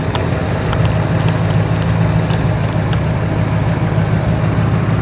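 2002 Ford F-150 SVT Lightning's 5.4-litre V8 idling steadily with its supercharger removed, run without a thermostat to warm up and circulate cooling-system cleaner.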